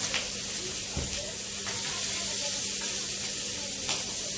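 Sliced pork sizzling steadily on a tabletop electric grill, with a few light clicks of metal tongs against the grill tray.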